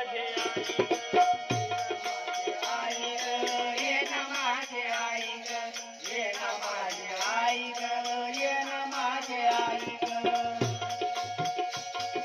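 Instrumental interlude of a Marathi devotional song: a melody with bending notes over held drone tones, with hand-drum strokes and a steady rattling shaker keeping the rhythm.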